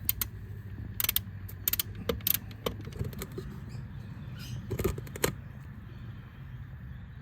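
Irregular clicks and clinks of a 12mm socket wrench working the oil drain plug loose on a Honda CBR500R, in small clusters around one to two seconds in and again near five seconds, over a low steady hum.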